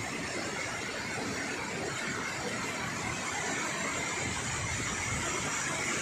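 Mountain stream of white water rushing steadily over rocks.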